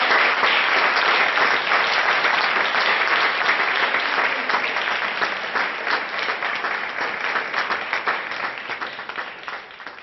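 Audience applauding a piano recital, a dense patter of many hands clapping that slowly fades toward the end.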